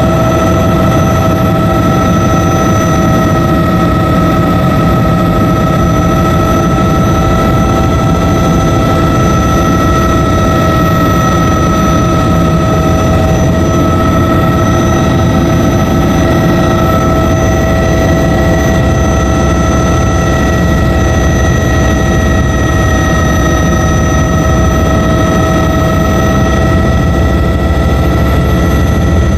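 Bell 206B JetRanger helicopter's single Allison 250 turboshaft running in flight: a steady high turbine whine over a dense low rumble, loud and unchanging.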